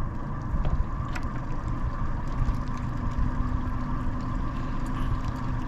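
A small fishing boat's engine running low and steady, a constant hum over a rumble of wind and water noise, with a few faint clicks.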